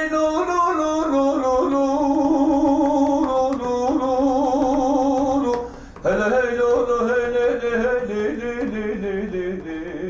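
A man singing a Kurdish folk lament in long, held, wavering notes. The voice breaks off briefly about halfway through, then takes up the song again and fades toward the end.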